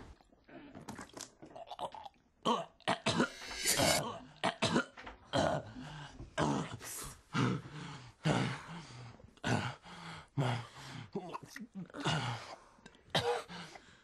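A person coughing and choking in repeated harsh fits, a dozen or so with short gaps between.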